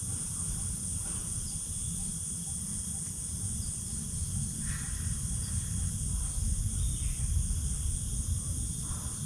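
Steady high-pitched chorus of insects such as crickets, with a constant low rumble underneath. A few faint short sounds come through about halfway in and near the end.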